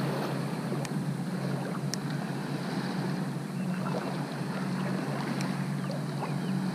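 Shallow water sloshing and swirling around the legs of a person wading, over a steady low hum.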